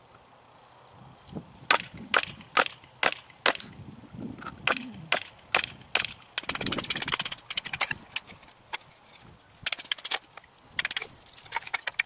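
Batoning fatwood: a wooden baton strikes the spine of a fixed-blade knife to split a resinous pine stick, a run of sharp wooden knocks about two a second. A short stretch of crackling comes a little past halfway, and a few more knocks near the end.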